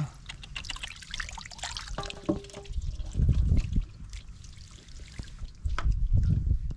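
Water trickling and dripping from a woven bamboo fishing basket held over a shallow pool, then splashing and sloshing as the basket and hands are dipped back into the water, loudest about three seconds in and near the end.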